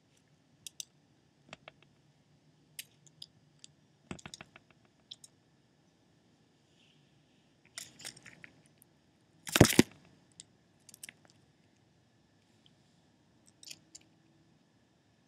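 Scattered small clicks and crunches of in-shell peanuts as an eastern chipmunk takes and nibbles them from a hand, with one louder rustling burst about ten seconds in.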